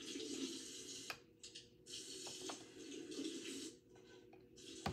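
Water running steadily with a soft hiss, breaking off twice for a moment.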